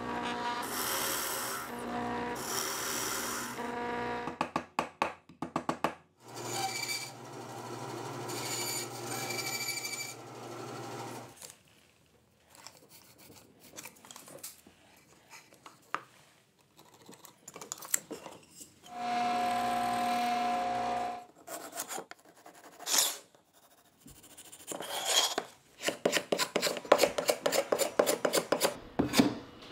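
A run of woodworking sounds: a random orbital sander running for the first four seconds, then a bandsaw cutting wood for about five seconds. A short steady machine whir follows near two-thirds of the way through, and fast scraping strokes of a hand tool on wood come near the end.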